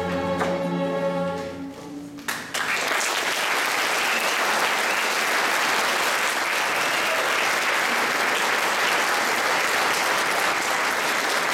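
A school string orchestra of violins, violas and cellos holds its final chord, which fades out about two seconds in; audience applause then breaks out and continues steadily.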